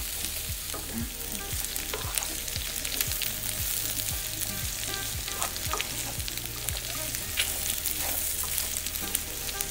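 Beef strips and sliced onion sizzling in oil and beef fat in a nonstick frying pan, stirred with a spatula that scrapes and taps against the pan many times.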